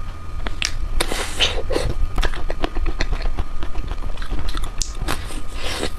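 Close-miked mouth sounds of someone eating chocolate ice cream: bites, lip smacks and chewing as quick, irregular clicks and crackles, over a steady low rumble.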